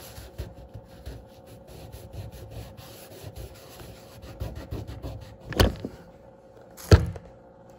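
Paper towel rubbed back and forth over the plastic top of an RV fresh-water tank, wiping it clean with rubbing alcohol in irregular strokes. Near the end, two sharp knocks a little over a second apart.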